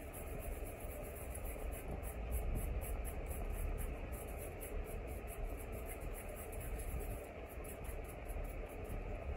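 A makeup brush scrubbing over a plastic terrain piece in repeated short dry-brushing strokes, over a low steady rumble.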